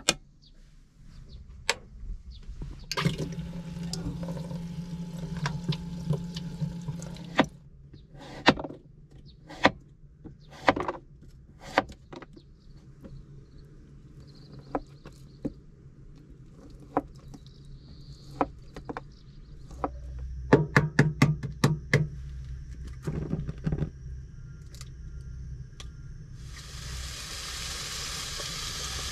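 Kitchen sounds: water runs from a tap for about four seconds, then a string of clinks and knocks of dishes and utensils. Near the end a steady sizzle starts as food begins frying in a hot pan.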